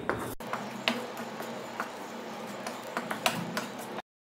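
A spatula scraping through thick masala paste in a nonstick frying pan, knocking against the pan with a handful of sharp taps. The sound cuts off abruptly near the end.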